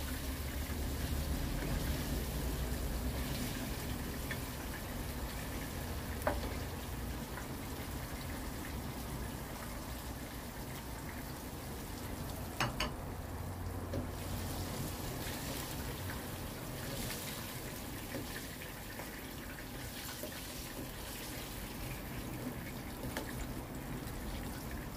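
Flour-coated chicken pieces frying in hot oil in a wok, a steady sizzle as the pieces turn golden, stirred with a spatula that knocks sharply against the pan a couple of times.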